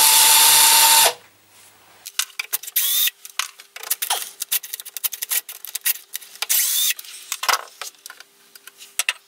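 A loud rushing noise with a steady whine cuts off suddenly about a second in. Then come the irregular metal clicks and scrapes of a screwdriver working screws out of the hinge on a pillar drill's sheet-metal cowling, with a couple of short squeaks.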